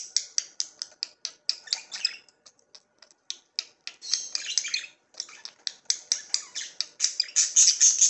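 Budgerigars chirping and chattering in quick, high-pitched chirps, busiest about halfway through and again near the end.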